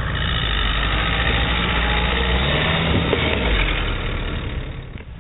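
Suzuki Jimny's engine working under load as it crawls up a rocky dirt slope and passes close by, its tyres scrabbling over loose soil and stones. The sound drops away near the end as it goes past.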